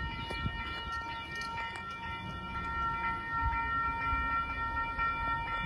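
Railway level crossing warning alarm sounding: a steady high-pitched ringing tone with overtones that holds throughout. A low rumble and a few faint knocks run underneath.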